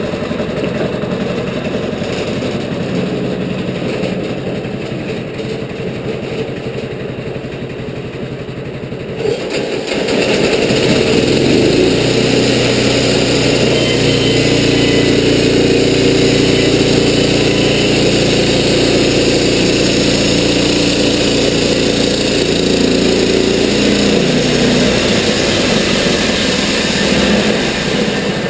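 Wood-Mizer LT15 portable bandsaw mill's engine idling, then about ten seconds in it throttles up and runs steadily under load as the band blade cuts through a western red cedar log, dropping back near the end.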